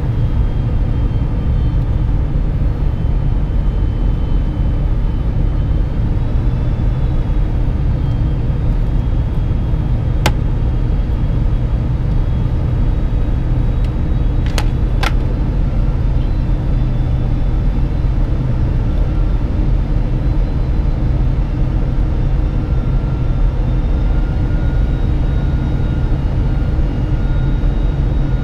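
Steady low rumble of airflow and engines inside the cabin of a Boeing 747-400 on approach, with faint thin engine whine tones drifting slightly in pitch. A sharp click sounds about ten seconds in, and two more come close together about four seconds later.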